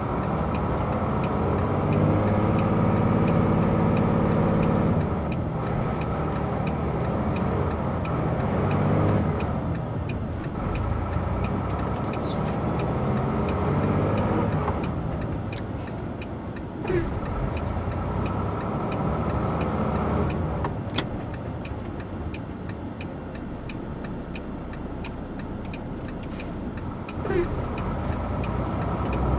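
A vehicle engine running, strongest for a few seconds near the start and then easing off, with a few sharp clicks later on.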